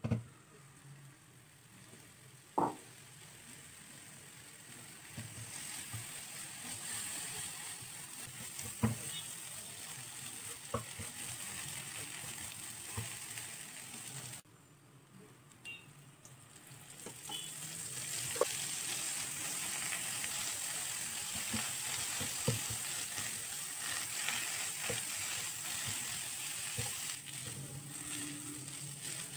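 Sweet filling sizzling in a non-stick frying pan as it is stirred and pressed with a wooden spatula, with scattered knocks of the spatula on the pan. The sizzling drops away briefly about halfway through, then comes back louder.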